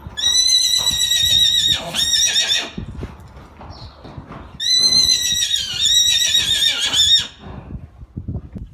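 A horse whinnying: two long, high, wavering neighs, each about two and a half seconds, the second starting about four and a half seconds in.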